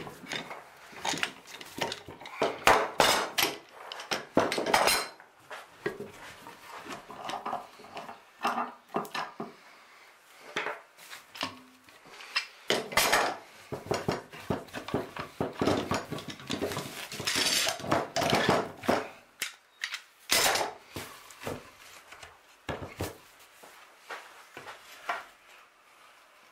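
Hand work on a workbench: irregular metallic clinks, clicks and scrapes as screws are driven by hand screwdriver into a clamped timber block and the bar clamps are handled.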